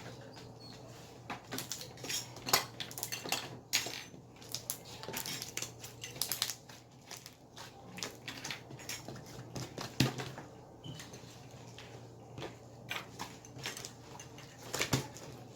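Sticky slime being squished and pulled by hand, making a run of irregular clicks and crackling pops. The loudest pops come a couple of seconds in and again about ten seconds in.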